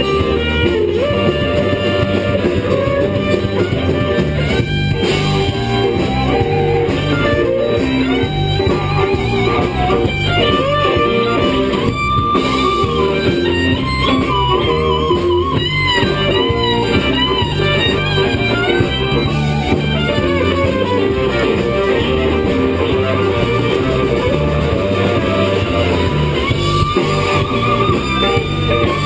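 Blues band playing: electric guitar with bass and drums, bending lead notes over a steady beat.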